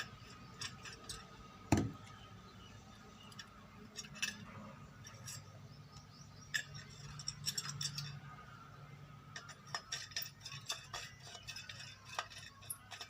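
Small metal parts and hand tools clicking and clinking while an electric iron is taken apart to get at its thermostat contact points, with one sharper knock about two seconds in and a quicker run of clicks near the end.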